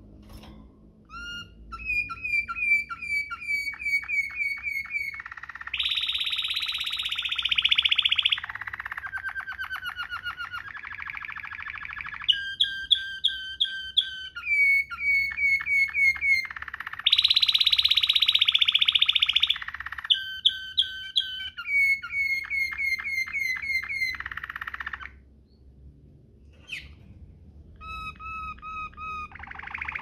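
Domestic canary singing a rolling song in the Waterslager style, strung from rapid trills of repeated notes and dense rolls, with a new phrase every second or two. There is a short pause a little before the end.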